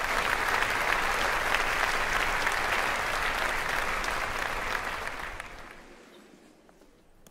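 Audience applauding, a dense patter of many clapping hands that fades away from about five seconds in.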